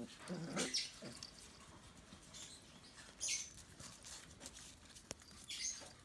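Xoloitzcuintle puppies play-fighting: a short puppy cry in the first half second, then faint scuffling of paws and bodies on a blanket with a few small taps.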